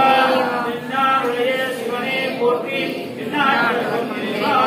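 Voices singing a Tamil devotional chant of praise in a steady melodic line.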